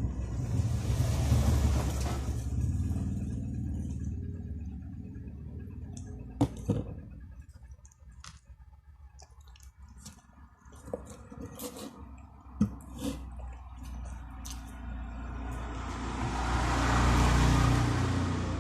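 Road vehicles passing outside: a rumble with hiss swells and fades near the start, and again louder near the end. In the quieter middle come a few short sharp clicks and taps.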